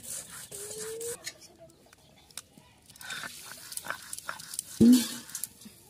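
Stone grinding slab and stone roller (sil-batta) worked by hand, with light scraping and knocking. A short, loud animal call comes near the end.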